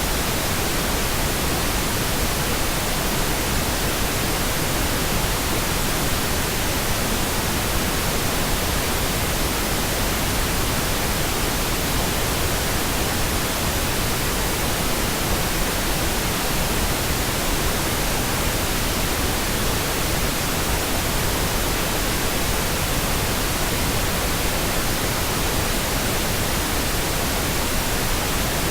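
Steady pink noise: an even, unchanging hiss spread across the whole range from deep to high, with no tones, events or changes in level.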